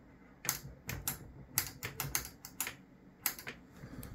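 Irregular run of sharp clicks, about a dozen, bunched over two seconds and then two more a little later: the controls of a DC bench power supply being pressed as it is switched back on.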